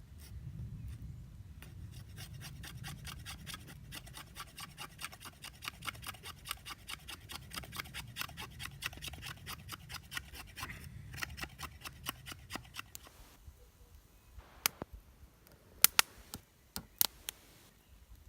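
Rapid, evenly spaced rasping strokes of a hand tool working wood for about ten seconds, then a few sharp cracks near the end.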